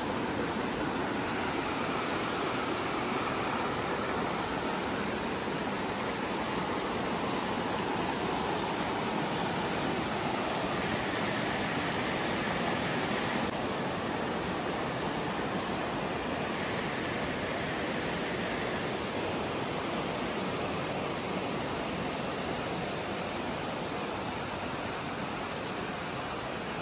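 A rocky river rushing over boulders, heard as a steady, even rush of water.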